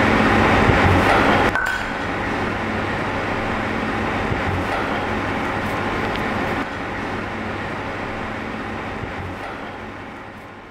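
Steady kitchen background noise, a low hum and hiss with an occasional faint clink, dropping in level twice and fading out at the end.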